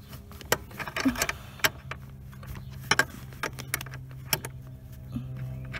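Irregular sharp clicks and clinks of hands working loose metal parts around the clutch pedal and master cylinder linkage under a truck's dashboard, over a steady low hum.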